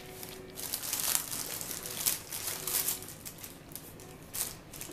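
Paper burger wrapping crinkling and rustling in irregular bursts as a hamburger is unwrapped by hand.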